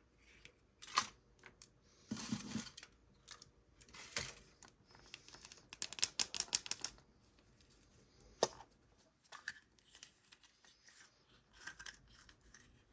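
Close-up handling while a surprise egg is opened: faint scattered clicks and crackles, a short crinkly rustle about two seconds in, and a quick run of rapid clicks and cracks around the middle.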